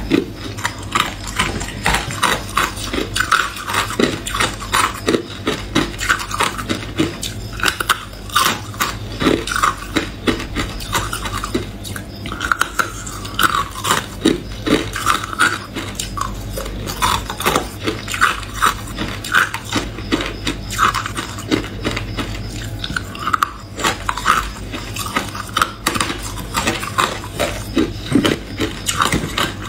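Hard ice being bitten and chewed, a dense, irregular run of sharp crunches and cracks, with ice chunks knocking against each other in a plastic basin.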